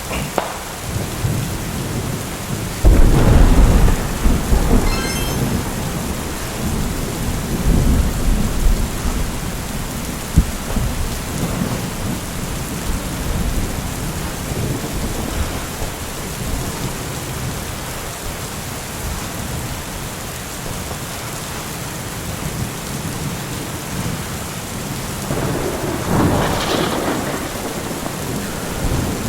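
Steady rain with rolling thunder: a loud rumble about three seconds in that dies away over several seconds, and another roll near the end.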